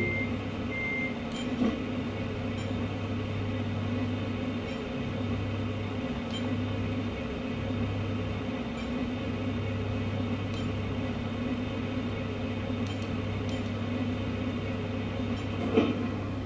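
Scale RC truck's electronic sound unit playing a steady diesel idle, with its reversing beeps ending about a second in. There is a short click about a second and a half in and another near the end.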